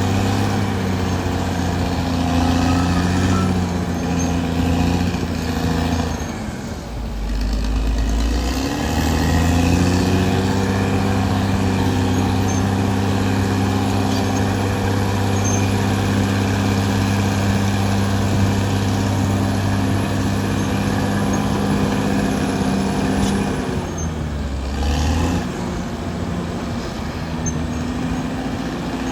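Caterpillar D6R XL bulldozer's diesel engine running steadily at high revs, its pitch dropping sharply and then climbing back twice, about seven seconds in and again near twenty-four seconds.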